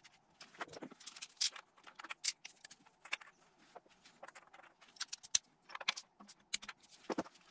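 Irregular sharp metallic clicks and clinks of a hand tool and a block oil fitting being worked into a cast-iron engine block while the fitting is screwed in.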